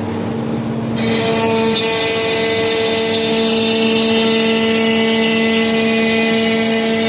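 Electric woodworking power tool running at a steady speed with a constant whine. Its sound fills out about a second in and then holds steady.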